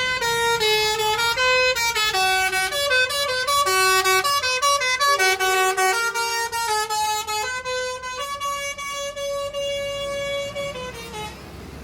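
Bus 'telolet' musical horn of the Basuri type playing a quick melody of short stepped notes, then one long held note, stopping about eleven seconds in.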